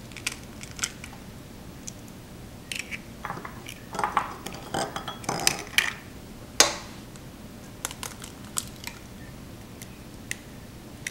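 Eggs being cracked against the rim of a stainless stand-mixer bowl: scattered sharp taps and clinks with some shell crunching, at an irregular pace.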